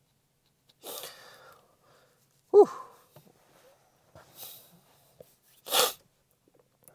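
A man's breath sounds, close up: a sniff about a second in, a short falling hum or throat sound a little later (the loudest), and a sharp sniff or exhale near the end.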